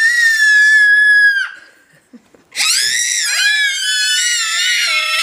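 A young child's shrill, long held scream, cut off about one and a half seconds in; after a second's pause a second long scream starts and carries on, wavering a little in pitch.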